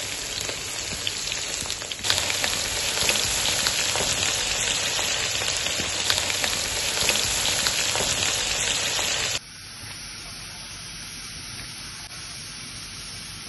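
Almonds deep-frying in hot oil in a pan: a dense sizzle peppered with fine crackles. About nine seconds in it drops suddenly to a quieter, softer sizzle.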